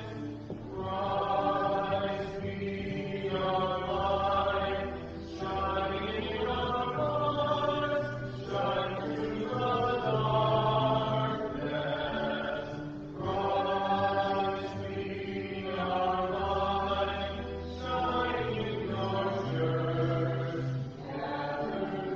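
Slow church singing: a hymn or chant sung in phrases a second or two long over long held low accompaniment notes.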